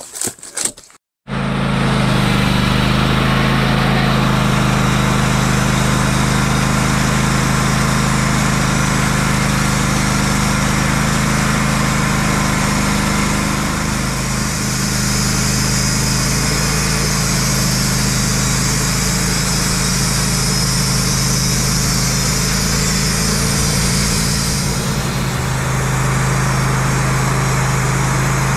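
Wood-Mizer band sawmill running with its engine at a steady speed, starting abruptly about a second in. From about the middle a higher hiss joins for about ten seconds, then drops away.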